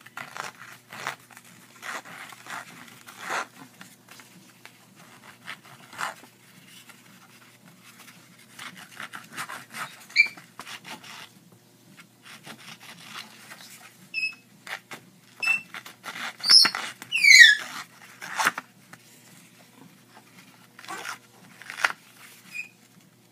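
Paper-distressing tool scraped in a run of short strokes along the edge of a piece of cardstock. A pet bird chips in with short beep-like whistles, mimicking a microwave, and a couple of falling whistles about two-thirds of the way through, the loudest sounds.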